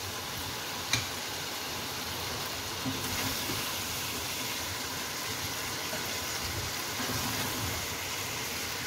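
Prawns sizzling steadily in hot oil in a karahi as they finish frying, with one sharp tap about a second in.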